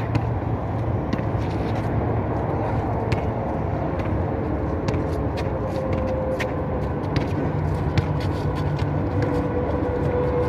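Basketball bouncing and being played on an outdoor concrete court: scattered sharp knocks at irregular intervals over a steady low rumble.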